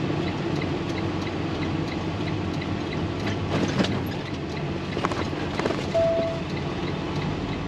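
Semi-truck diesel engine running steadily at low speed, heard from inside the Western Star cab as the truck pulls away and turns, with a few light clicks and rattles. A short single-tone beep sounds about six seconds in.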